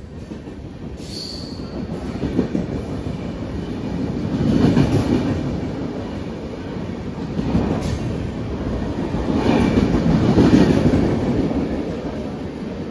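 Passenger train coaches rolling past, a steady rumble of wheels on rails with clickety-clack that swells in loudness as each coach goes by. There is a brief high wheel squeal about a second in.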